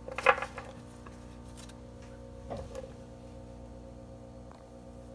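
Tarot cards being shuffled by hand: soft scattered card clicks and flicks, the loudest about a third of a second in, over a steady faint hum.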